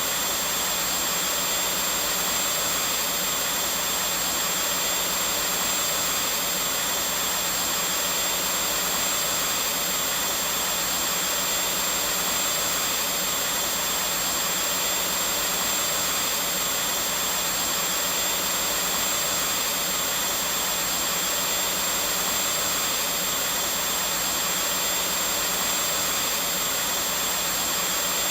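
Vacuum cleaner running steadily, a constant rushing noise with a thin, high, steady whine over it.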